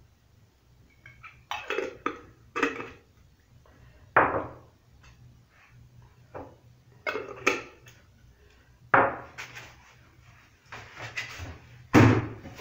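Small glass spice jars with metal twist-on lids being handled on a stone countertop: lids screwed back on and jars set down, giving about a dozen short clinks and knocks at uneven intervals. The loudest comes near the end.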